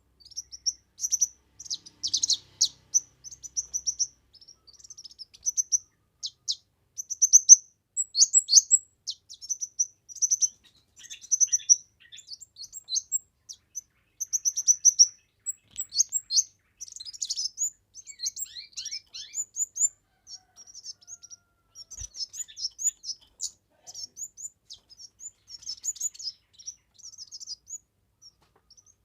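Kemade bird singing without pause: a busy stream of short, high chirps and quick trills in phrases a second or two long.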